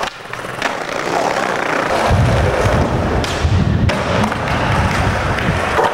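Skateboard wheels rolling on concrete with a low rumble, and a few sharp clacks of the board hitting and landing.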